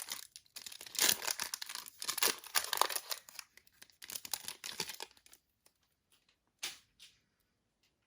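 Foil trading-card pack being torn open and crinkled by hand for about five seconds, the wrapper sealed tightly, followed by two brief soft crinkles or clicks.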